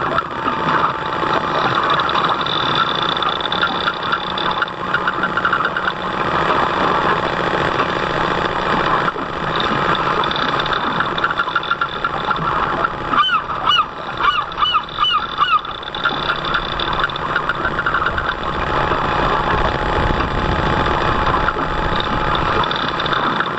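The motor of a 1/30-scale RC model fishing boat running steadily, with water noise around the hull. About halfway through, a goose honks about six times in quick succession.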